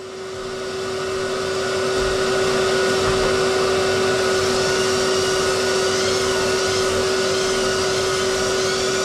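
Electric long-handled drywall sander and its attached shop vacuum running together while the sanding pad works dried joint compound on the wall. It is a steady machine hum with one constant tone that builds up over the first couple of seconds, then holds level.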